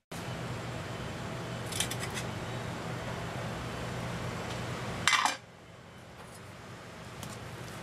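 Udon boiling in a square metal mess tin on a gas stove burner: a steady hiss with a low hum. There is a light clink about two seconds in and a louder metallic clatter about five seconds in, after which the hiss gets quieter.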